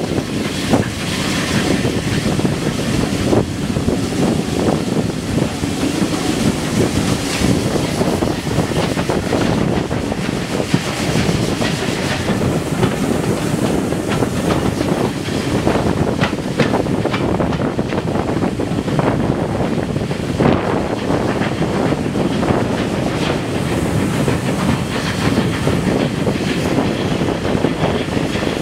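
Bulleid West Country class light pacific 34092 City of Wells, an unrebuilt three-cylinder steam locomotive, working hard up a steep gradient. Its exhaust beats mix with the carriage wheels clattering over the rails and wind on the microphone.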